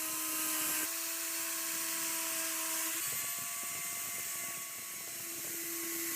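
Electric power tool running at a steady high speed with a hissing, abrasive grind. The motor's pitch steps slightly about a second in and again about three seconds in, and the grinding sounds rougher for a couple of seconds after that.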